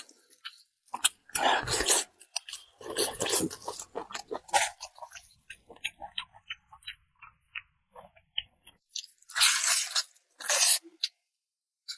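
Close-miked eating of a sesame-sauce braised pork knuckle: a person chewing and biting in quick, irregular bursts. The loudest bursts come about a second and a half in, about three seconds in, and near the end, with softer clicks between them.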